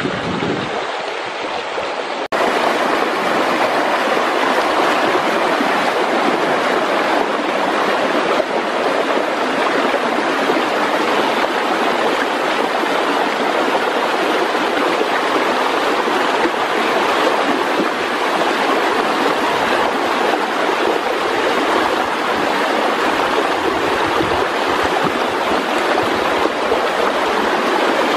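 Shallow river water running over stones: a steady rushing that gets louder about two seconds in and then holds even.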